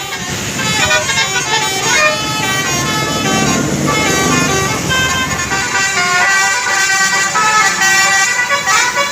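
Basuri multi-tone musical air horn on a tour bus playing telolet, a quick tune of short stepped notes. A bus's engine and road noise rise under the horn about four seconds in.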